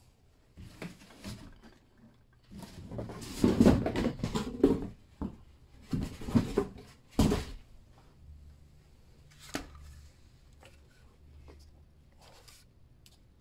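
Handling noise from unboxing an RC truck: its plastic bag crinkling and rustling while the truck and its transmitter are handled. The rustling is loudest a few seconds in, and a few sharp knocks follow about six and seven seconds in.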